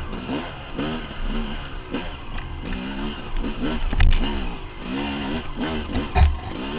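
Dirt bike engine revving up and falling back about twice a second as the throttle is worked hard up a steep, rocky climb. A couple of heavy thumps, about four and six seconds in, come from the bike striking the terrain.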